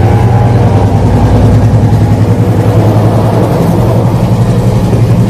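A train's diesel engine running at a steady low throb.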